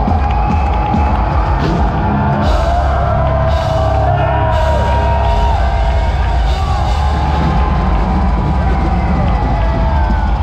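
Melodic death metal band playing loud live through a venue PA: heavy distorted guitars, bass and pounding drums, with cheering from the crowd.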